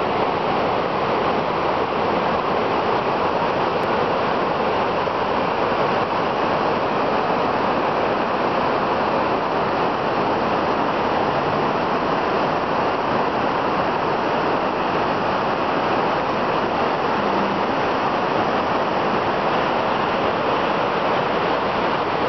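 The Mandakini, a fast Himalayan mountain river, rushing in a steady, loud wash of white water.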